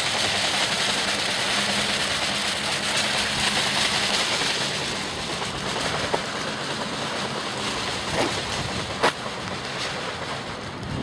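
Road traffic noise: a steady rush of tyres and engine hum that eases off after about five seconds, with a few light clicks near the end.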